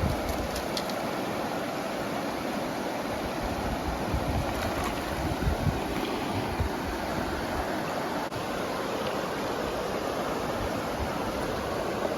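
Steady rush of flowing river water, with irregular low buffeting of wind on the microphone.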